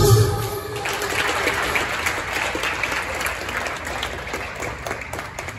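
Floor-exercise music cuts off right at the start, then a small audience applauds, the clapping gradually dying away.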